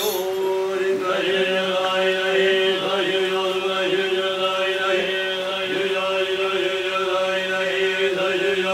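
Buddhist monks chanting together in a temple hall, the voices holding a steady droning pitch while other voice lines rise and fall around it.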